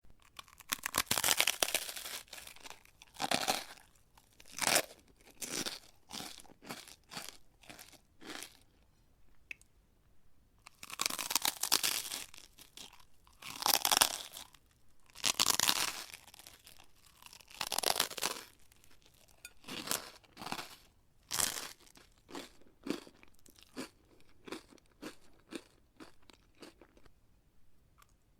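Crispy food crunching in irregular bursts of crackling, some long and loud, others short and sharp, with brief pauses between them.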